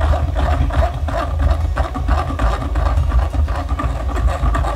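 A metal spoon scrapes and rubs thick blended chile sauce through a wire mesh strainer in repeated strokes, over a steady low rumble.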